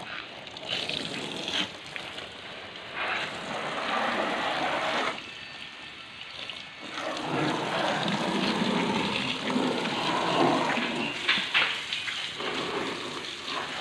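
Water spraying from a hose onto a car's body, glass and wheel, rinsing it with plain water. The splashing rises and falls as the stream moves over the car, dropping off for a couple of seconds in the middle and then coming back louder.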